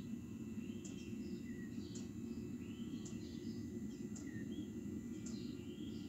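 Webasto diesel parking heater running steadily through its start-up, a low even rumble from its burner and combustion-air fan. Over it, a bird repeats a short chirping call about once a second.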